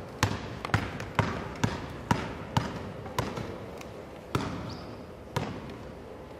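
Basketball dribbled on a hardwood gym floor, nine sharp bounces with a short echo after each. They come about twice a second for the first three seconds, then further apart.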